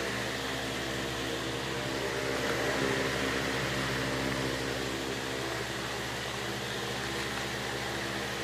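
Washing machine running through its cycle with a steady hum of several tones over a hiss.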